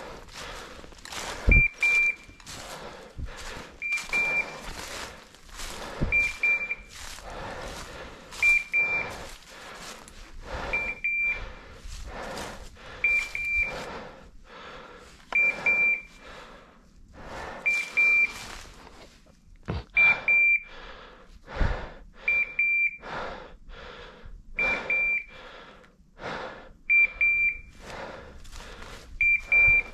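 Hunting dog's beeper collar giving a short, high double beep about every two and a quarter seconds, over the rustle and crunch of footsteps through undergrowth.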